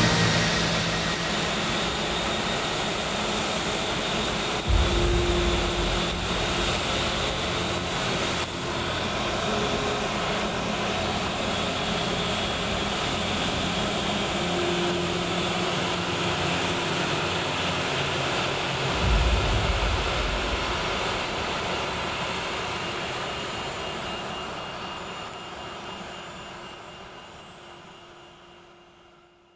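Airbus A380-861 jet engines (Engine Alliance GP7270) running as a steady rushing noise, with two brief low rumbles about 5 and 19 seconds in, fading out gradually over the last several seconds.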